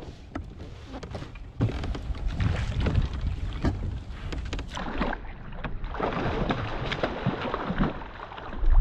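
Sounds of fishing from a kayak: irregular knocks and clicks on the boat over a rush of water and wind noise, thicker from about six seconds in.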